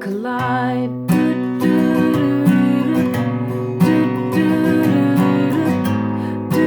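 Acoustic guitar strummed in a steady rhythm, playing the chords of a pop ballad, with the sung word "collide" held over it in the first second.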